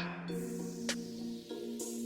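Background electronic music: held synth notes with a sharp percussive hit roughly every second.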